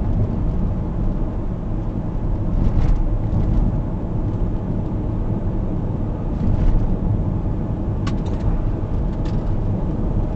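Car driving at about 45 mph, heard from inside the cabin: a steady low rumble of tyres and engine, with a few faint clicks.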